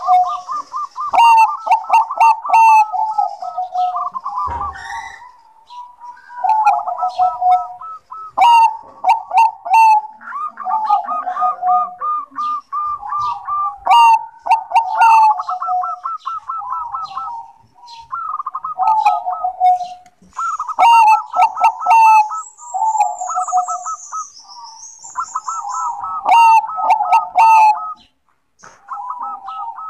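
Bangkok-strain zebra dove (perkutut) singing: phrase after phrase of rapid, bubbling coos, each a second or few long, with short pauses between them.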